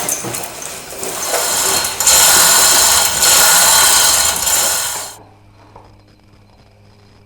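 A power tool running in two loud stretches about two seconds in, after lighter noisy work at the start, and stopping suddenly about five seconds in, leaving a faint low hum.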